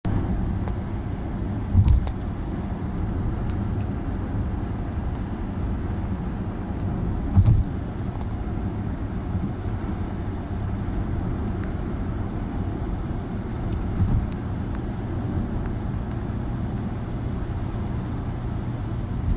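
Steady low road and engine rumble heard inside a moving car's cabin at highway speed, with three short thumps about two, seven and fourteen seconds in.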